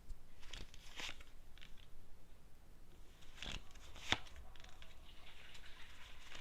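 Tarot cards being handled: about five faint, short swishes and snaps, the sharpest about four seconds in.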